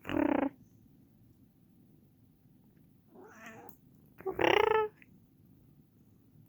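Domestic cat meowing twice, a faint meow about three seconds in and a loud one about a second later, complaining at its owner's coughing. A short loud burst comes right at the start.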